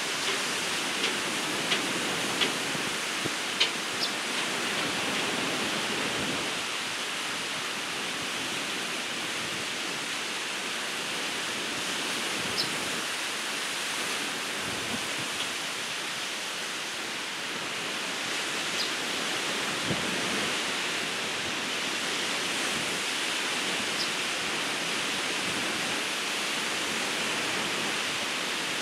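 Ocean surf breaking and washing on a beach, a steady rushing wash of water, with a few brief high ticks, mostly in the first few seconds.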